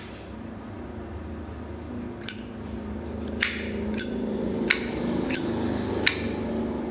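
Metal case of a Zippo lighter clicking and clinking as it is handled: six sharp metallic clicks with a short ring, coming irregularly about every half second to a second from about two seconds in.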